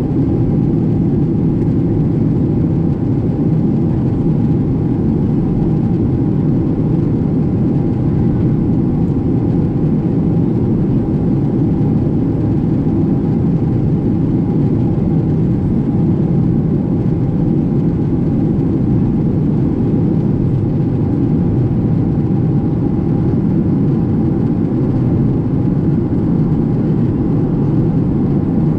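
Cabin noise of a Boeing 777-200 airliner in flight, heard from a window seat by the wing: a steady, loud, low noise of the engines and rushing air, with a thin steady hum above it.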